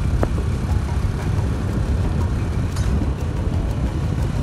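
Steady low rumble of road and engine noise from riding in a moving vehicle, with wind buffeting the microphone.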